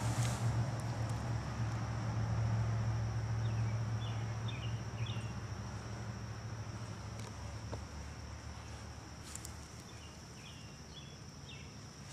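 Outdoor ambience: a steady high buzz of insects, likely crickets, with a few short bird chirps twice. A low hum at the start fades away about halfway through.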